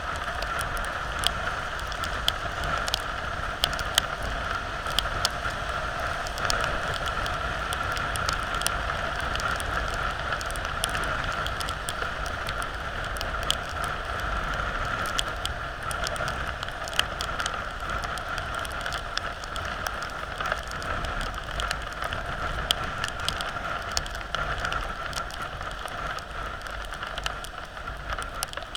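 Steady heavy rain, with raindrops ticking irregularly on a nearby surface over a steady low rumble of movement.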